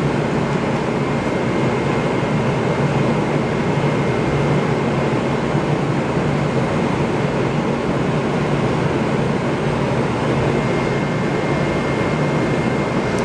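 Air-handling ventilation running steadily: an even rushing hiss over a low hum, with a faint high whine.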